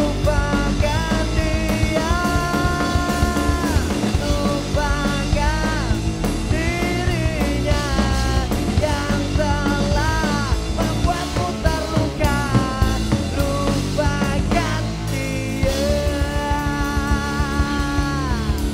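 Punk rock band playing live, with electric guitar, bass guitar and drum kit under a male singer. The vocal line includes long held notes that slide down at their ends, one early on and one near the end.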